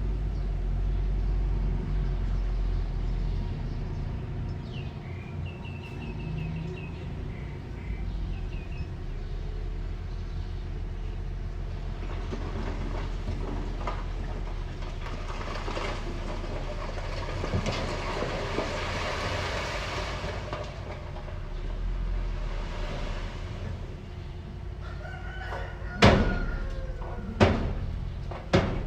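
Small diesel earth-moving machine, a mini bulldozer, running with a steady low rumble that grows noisier in the middle, then three sharp metallic clanks near the end.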